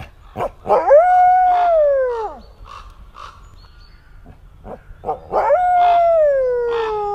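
Red wolf howling twice: each howl is a long call that rises, holds, then slides down in pitch over about two seconds, the second starting about five seconds in. Short, faint sounds come between the two howls.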